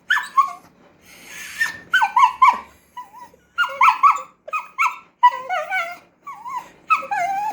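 Cockapoo whining and grumbling at its owner in a run of short, high calls that bend up and down in pitch, with brief pauses between clusters: vocal begging and protest for food it has been told to wait for.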